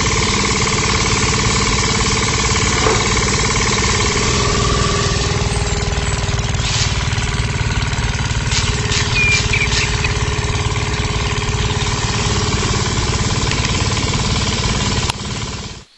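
A small electric motor driving the roller of a miniature rice thresher, running with a steady whine over a dense rattle. It fades and cuts off near the end.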